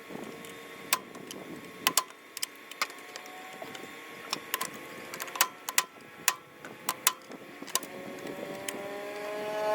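Hammer striking a steel punch against the mower's welded steering, knocking off a spot: a string of sharp metallic taps at uneven intervals. Near the end a steady motor hum swells in.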